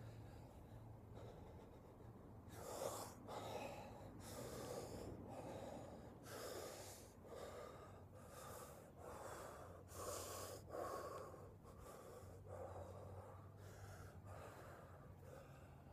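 A man's deliberate breathwork: forceful breaths in and out, one after another less than a second apart, starting about two and a half seconds in.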